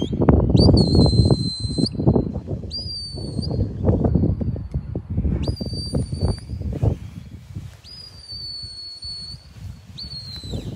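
Sheepdog handler's whistle blowing five commands to a working dog, each a high steady note of about a second or less, some with a quick bend in pitch at the start or end. A low rumbling noise runs underneath, loudest in the first half.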